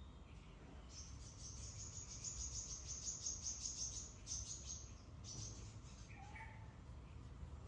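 Insect trilling in fast, high-pitched pulses for about four seconds, then a short second burst. A brief faint chirp follows near the end.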